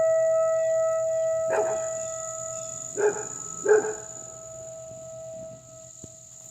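Outdoor tornado warning siren sounding one steady tone during a routine siren test, fading slowly as it goes. A dog barks three times over it, about one and a half, three and nearly four seconds in.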